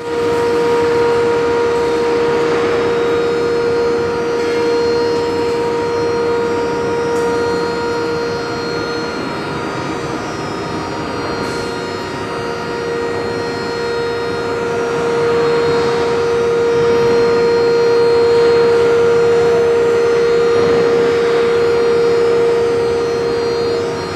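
Steel-scrap melting furnace running: a loud, steady hum held on one high tone, over a continuous noisy rush from the melt shop.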